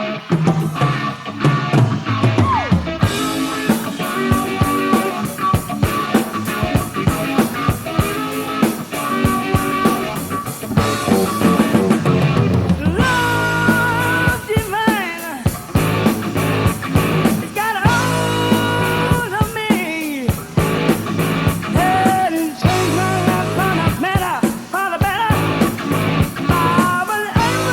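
Hard rock band playing: electric guitar with bass and drums. The full drum beat comes in about three seconds in, and a bending lead melody enters about halfway through.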